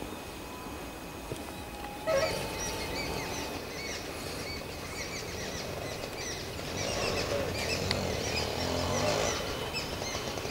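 Many small birds chirping together: a dense chorus of short, high, repeated calls that starts about two seconds in and grows busier later on.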